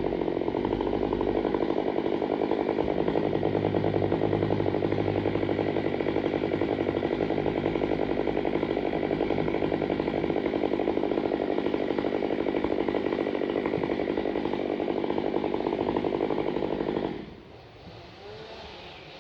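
Stihl 500i two-stroke chainsaw running steadily at high revs, then cutting off suddenly about 17 seconds in.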